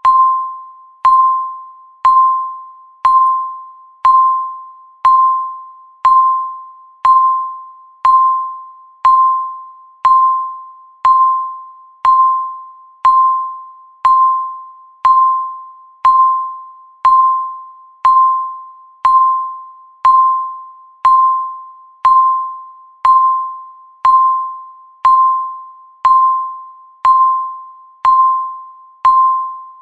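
Countdown timer beep, one short tone a second, each starting sharply and fading away before the next.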